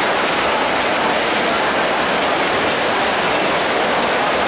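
Steady rushing water noise of swimmers splashing through butterfly strokes in a race.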